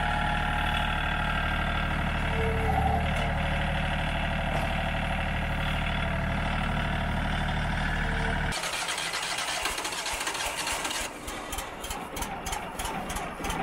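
A John Deere compact tractor's diesel engine running steadily as it drives with a log raised in its front loader. About two thirds in the engine sound cuts off suddenly, giving way to quieter, uneven noise with scattered light clicks.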